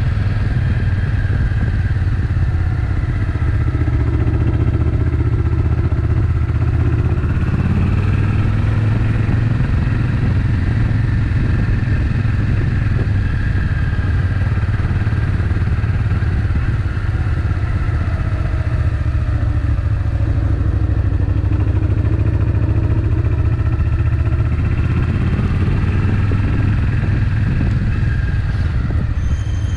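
Suzuki Intruder VS800's V-twin engine running steadily under way, its pitch gently rising and falling with the throttle.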